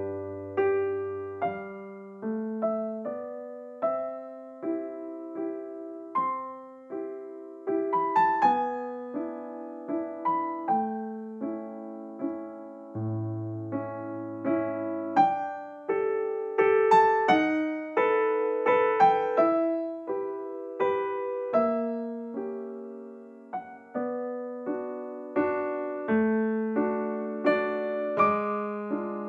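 Background piano music: a gentle melody of struck notes and chords over occasional low bass notes, each note fading after it is played.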